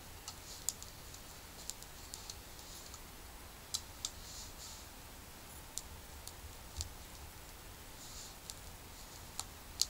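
Small wood fire crackling: scattered sharp pops and ticks at irregular intervals, over a faint low rumble.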